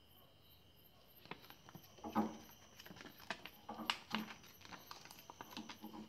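Plastic release liner being peeled off the double-sided tape on the back of a microwave membrane keypad: irregular crackling and rustling clicks starting about a second in.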